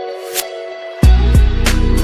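Background music: sustained guitar-like notes, then about a second in a heavy bass and drum beat comes in.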